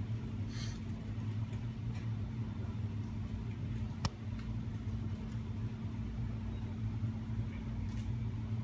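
Steady low machine hum, with a single sharp click about four seconds in.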